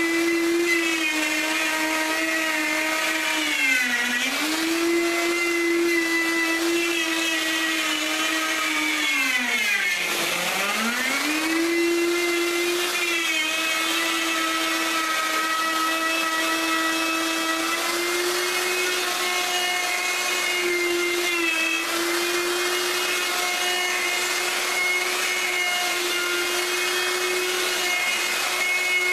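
Wood router running at high speed and cutting the solid maple edge banding of a round tabletop. Its steady whine drops in pitch twice as the bit bogs under load, briefly about four seconds in and more deeply about ten seconds in, then recovers.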